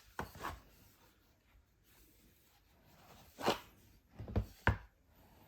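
A handful of short knocks and taps from flat-pack furniture parts being handled: particleboard panels and wooden dowels knocking together, with quiet gaps between them.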